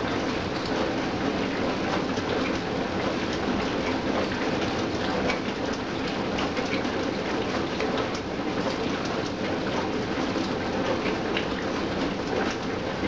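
Hyundai DW 6012BG dishwasher running a wash, its spray water spattering steadily inside the tub, with scattered small ticks.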